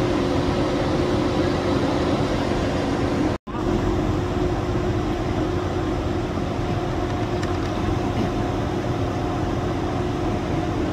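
Steady drone of shipboard machinery with a constant low hum, cut by a split-second dropout about three and a half seconds in.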